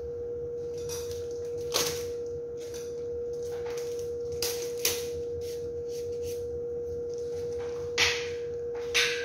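A steady hum held on one pitch, with light knocks and clicks of items being handled on a lab bench: a few scattered ones, the loudest about 8 and 9 seconds in.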